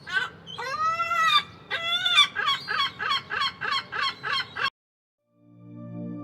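Pitched animal calls: one long call that rises and falls, then a rapid run of short falling calls at about three a second, stopping abruptly. A steady low droning tone fades in near the end.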